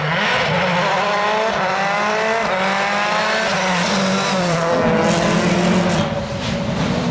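A World Rally Car's turbocharged engine accelerating hard through several quick upshifts, then lifting off about three and a half seconds in. A few sharp pops follow, then it accelerates again near the end.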